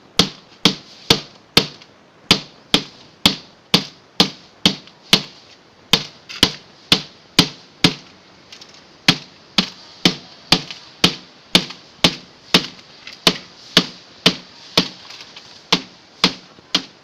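Machete (golok) hacking repeatedly at a refrigerator being broken up for scrap: sharp, ringing blows about two a second, with a short pause about eight seconds in.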